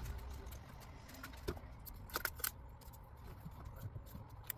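Rubber garage door bottom seal being worked by hand through its aluminum retainer track without lubricant: faint rubbing with a few scattered clicks and small squeaks.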